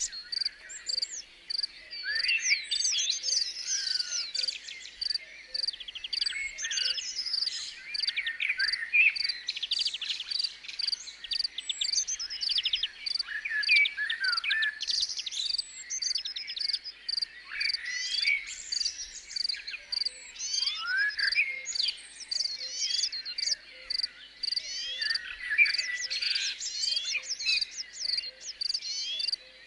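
Nature ambience: many birds singing in quick whistles and trills over a steady, evenly spaced chirping of insects.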